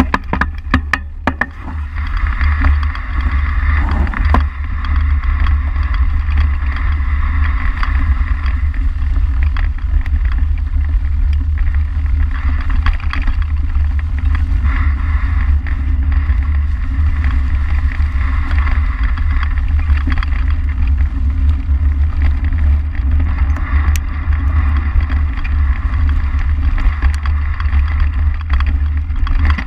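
Mountain bike ridden fast down a forest trail: heavy wind buffeting on the camera microphone over the tyres rolling through dry leaves and the bike rattling, with a quick run of knocks about a second in.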